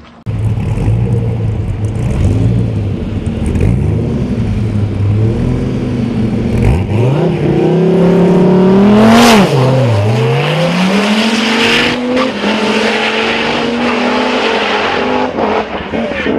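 Dodge Viper V10 engine at a drag strip: first it idles and blips with a wavering pitch, then it goes to full throttle, the pitch climbing and dropping back at each gear change. Sharp bangs come near the end as the engine fails and the car catches fire.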